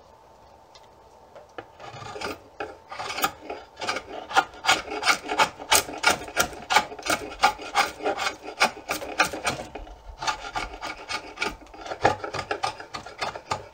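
Draw knife shaving the back of an Osage orange bow stave in short, quick strokes, cutting away wood down to a chosen growth ring. The strokes come about three a second, starting about two seconds in, with a brief pause near ten seconds.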